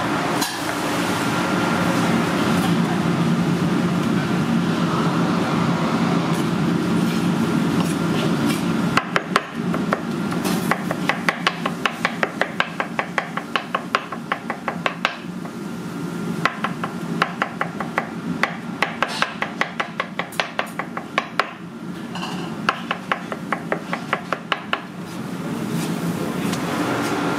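Cleaver chopping raw peeled shrimp into a paste on a wooden cutting board: rapid sharp knocks of the blade on the board, several a second, starting about nine seconds in and stopping near the end. A steady background noise fills the first part and the last couple of seconds.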